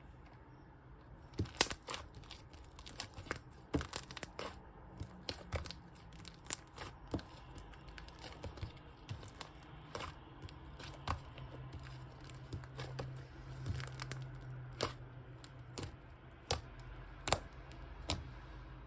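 Cloud slime being stretched, torn and pressed by hand, giving irregular soft crackles, snaps and tearing sounds at uneven intervals.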